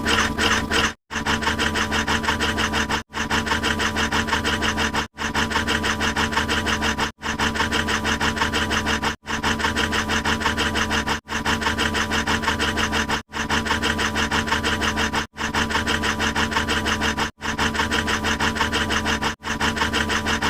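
A short, harsh sound effect of rapid rasping pulses over a steady buzz, looped over and over with a brief silent break about every two seconds.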